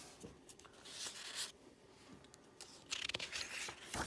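Paper rustling and sliding as a picture book's page is turned by hand, in two short, faint stretches about a second in and again near the end.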